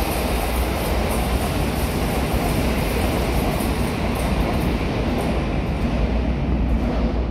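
High-speed train passing through the station at speed: a steady, loud rush of wheels on rail and air, under the covered platforms.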